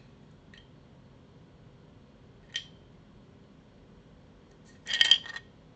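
80Retros Film Game 1989 silent mechanical keyboard switches being pressed: a faint click, a single sharp clack about two and a half seconds in, then a quick cluster of several clacks near the end, the loudest of them.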